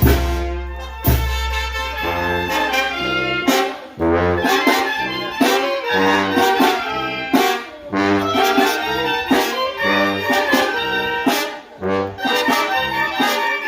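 Mexican village brass band (banda) playing a tune: saxophones and trumpets over a stepping bass line, with drum strikes throughout.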